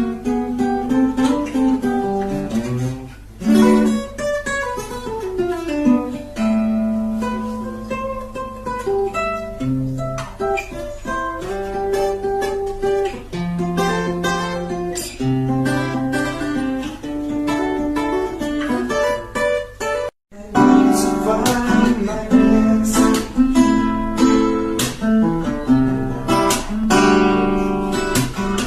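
Acoustic guitar music, mixing picked melody notes and strummed chords. It breaks off for a moment about twenty seconds in, then resumes with brisker strumming.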